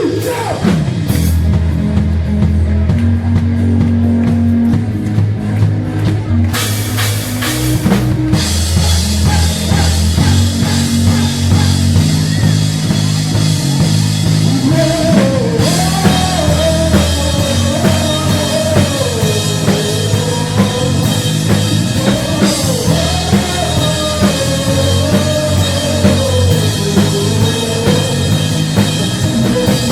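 Drum kit played along to a rock song with bass and guitar. There is a burst of cymbal crashes about seven seconds in, and a sung voice comes in about halfway through.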